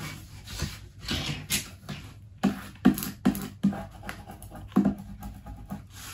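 Hands handling a sheet of cut stickers: irregular paper rustles and light taps, with several sharper clicks in the middle.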